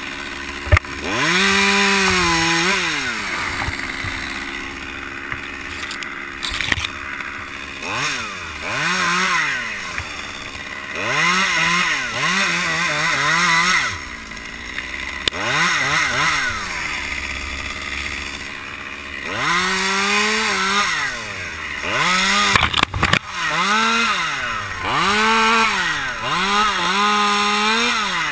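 Top-handle chainsaw cutting pine limbs, revving up in about nine bursts of a few seconds each and dropping back to idle between cuts; the pitch rises at the start of each cut and falls at the end of it.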